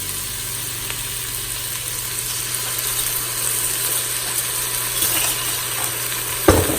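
Onions and garlic sautéing in an Instant Pot's inner pot, a steady sizzle. A brief knock comes near the end.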